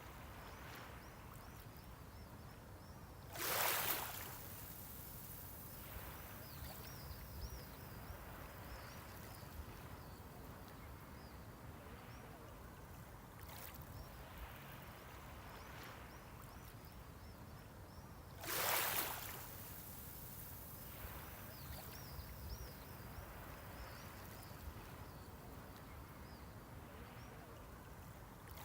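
Small sea waves at the shoreline: a steady low wash, with a wave breaking in a short splash twice, about fifteen seconds apart.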